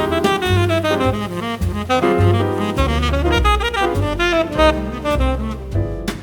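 Jazz background music with a saxophone-like lead over a walking bass line.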